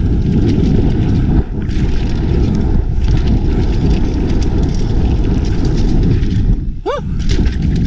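Mountain bike riding fast down a dirt trail: tyres rumbling and the bike rattling over the bumps, with wind buffeting the camera microphone. A brief rising squeak about seven seconds in.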